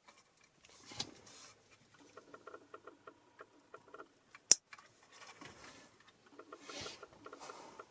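Small clicks, ticks and rustles of hands working on car stereo wiring, with one sharp snap about halfway through.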